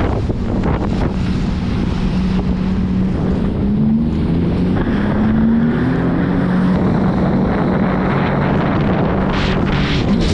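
Sea-Doo jet ski engine running on the water, its pitch rising a few times in the middle and settling again, with wind buffeting the microphone and water rushing against the hull.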